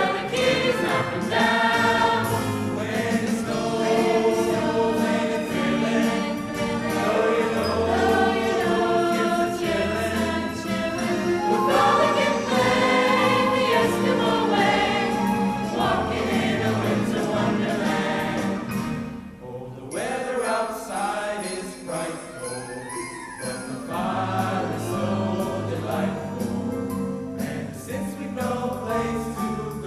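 A student choir singing with musical accompaniment. The music thins out briefly about two-thirds of the way through, then carries on.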